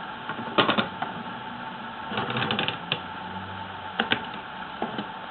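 Metal bed plate of a small etching press being set back into the press frame: scattered light clicks and knocks, with a quick rattle of clicks a little after two seconds in.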